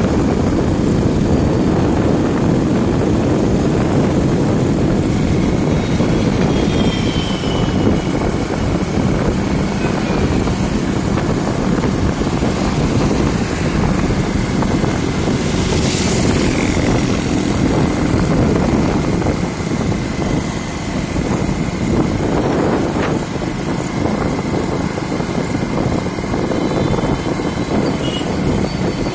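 Motorcycle riding at highway speed: a steady rush of wind over the microphone mixed with the engine's drone, with a brief louder rush about halfway through.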